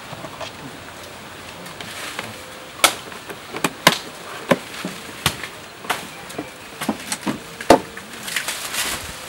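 About a dozen scattered sharp clicks and knocks from a tranquilliser dart rifle and its darts being handled and loaded, over a steady faint hiss.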